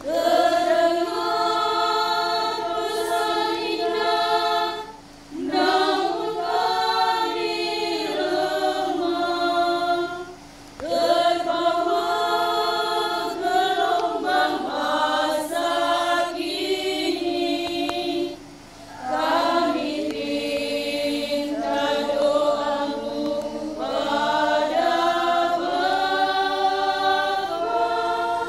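Women's choir singing unaccompanied in long held phrases, with three brief pauses between phrases.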